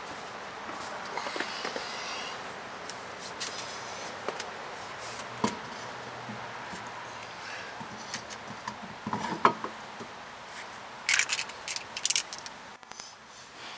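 Scattered metallic clicks and knocks of hand tools at work on a car's front wheels and jack, with a quick run of sharp clicks about eleven seconds in. There are a couple of faint high squeaks, about a second in and again about four seconds in.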